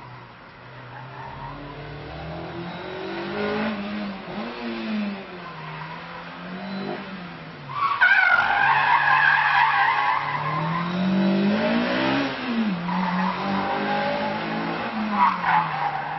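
Honda S2000's four-cylinder engine revving up and down through tight turns, with the tyres squealing loudly from about eight seconds in for several seconds as the car slides around a cone, and again briefly near the end.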